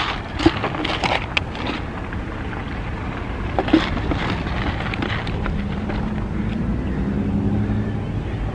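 Hands rummaging through a handbag, small items rustling and clicking against each other. About halfway through, a car engine's steady low hum comes in and runs on.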